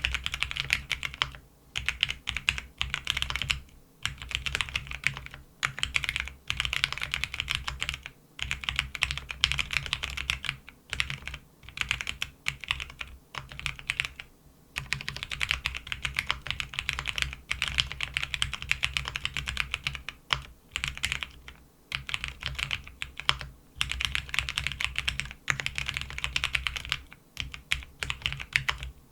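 Typing on a 4GT Silhouette custom mechanical keyboard with a PC half plate and lubed Cherry MX Vintage Brown switches: fast runs of keystrokes a couple of seconds long, broken by short pauses.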